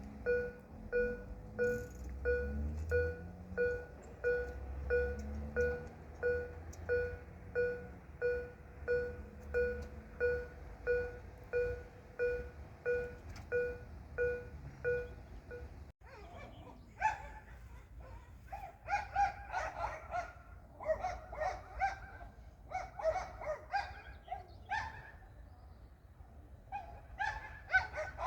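Level-crossing warning bell ringing in even strokes about twice a second, with a low rumble in the first few seconds. After a sudden cut, a run of irregular harsh animal calls.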